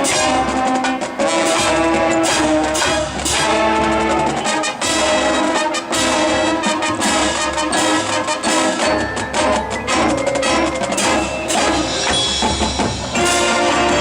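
Marching band playing: brass section with trumpets and trombones sounding sustained chords over percussion hits.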